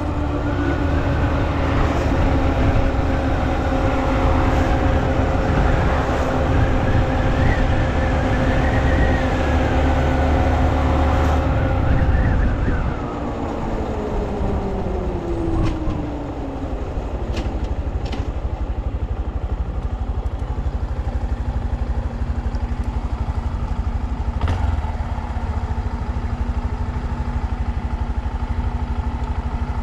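Honda Monkey's 125 cc single-cylinder four-stroke engine running at a steady cruise, with wind buffeting the microphone. About twelve seconds in, the engine note falls away as the bike slows. From about twenty seconds it idles steadily at a stop.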